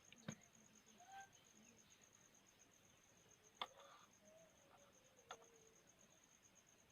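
Near silence: three faint, sharp clicks of a keypad mobile phone's parts being handled as its new display is fitted, over a faint steady pulsing high tone.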